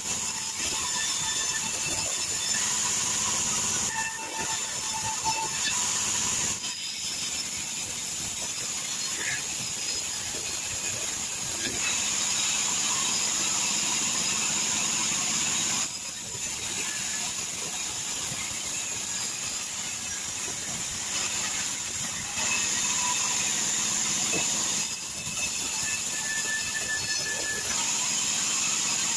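Sawmill band saw running and ripping a log lengthwise into boards. A steady cutting noise grows louder and softer in stretches of a few seconds.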